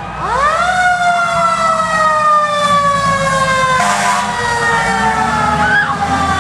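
Fire engine siren winding up quickly to a high pitch, then slowly falling in pitch as it winds down. A short horn blast sounds about four seconds in.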